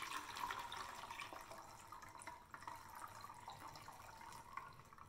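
Water pouring in a faint trickle from a glass measuring cup into a cut-down plastic bottle, filling it up to its zero mark, growing fainter toward the end.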